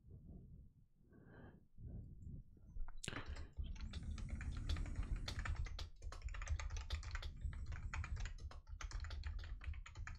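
Fast typing on a computer keyboard: a dense run of key clicks starting about three seconds in and going on until near the end.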